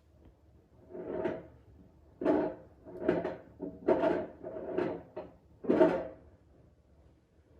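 Siemens iQ500 front-loading washing machine with its drum turning: wet laundry tumbling and sloshing, six swishing thuds about a second apart, as at the start of a wash.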